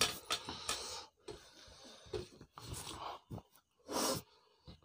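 Mouth sounds of people eating rice and chicken curry by hand: irregular wet chewing and smacking with short noisy breaths, the longest about four seconds in.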